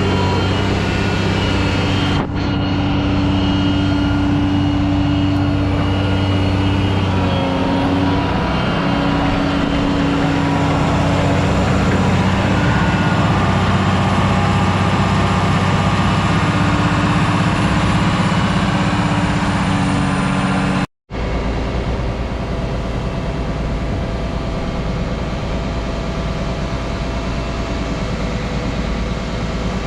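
Asphalt paver's diesel engine running steadily, its pitch shifting slightly. It cuts out for a moment about two-thirds of the way through, then carries on a little quieter and steadier.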